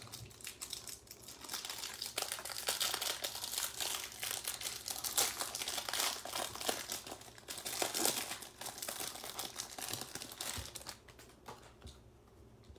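Clear plastic wrapper being peeled and crumpled off a stack of football trading cards: a run of crinkling and tearing that dies away about a second before the end.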